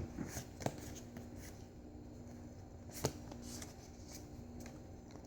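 Pokémon trading cards being handled and sorted: a few light clicks and taps, the loudest about three seconds in.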